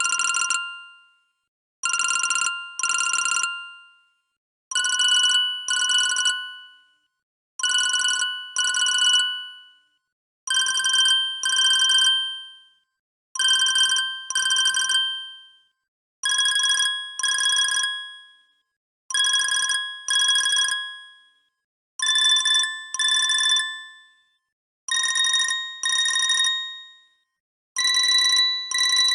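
Siemens C65 mobile phone ringtone in a telephone-bell style: a double ring of two short, decaying rings, repeating about every three seconds. The upper notes creep a little higher in pitch with each repeat.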